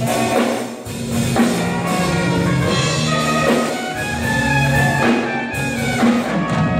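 A big band playing jazz: a saxophone section holding chords over a drum kit.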